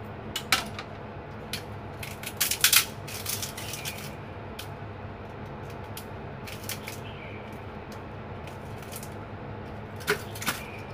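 Ice cubes cracking and clicking loose from a twisted plastic ice cube tray, in short clusters of sharp snaps and clatters, the loudest a couple of seconds in, with more in the middle and near the end.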